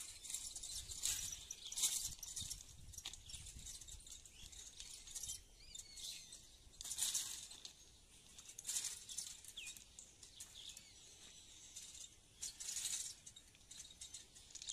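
Quiet rural outdoor ambience: faint, irregular rustling hiss in short patches, with a couple of faint bird chirps.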